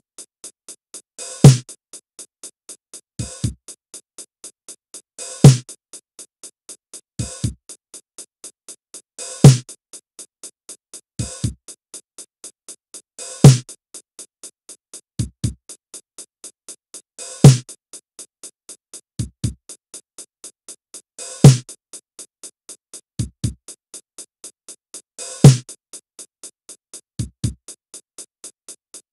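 Drum-kit playback of a sixteenth-note groove at 60 beats per minute: a closed hi-hat ticks very evenly four times a second, with a loud accented hit once every four seconds and lighter bass-drum hits in between.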